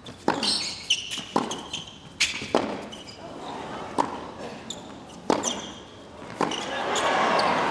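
Tennis rally on a hard court: sharp racket strikes and ball bounces about once a second, with short shouts from the players. Near the end the crowd noise swells into cheering as the point is won.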